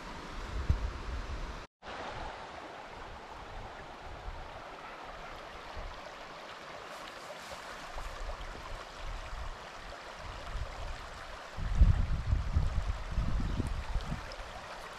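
A shallow river runs over rocks, a steady rush of water. From about twelve seconds in, gusts of wind rumble on the microphone.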